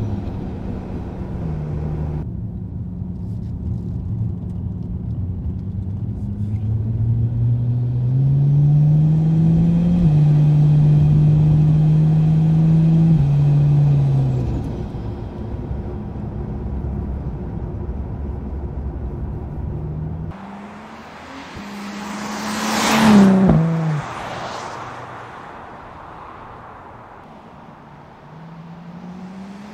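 Turbocharged Ford Barra 4.0-litre straight-six through a 4-inch exhaust with the VAREX muffler valve open, its note rising steadily under acceleration, holding, then dropping as the throttle comes off about 14 seconds in. About 20 seconds in the sound changes to the car heard from outside as it runs up and passes by, loudest a little after 23 seconds, then fades.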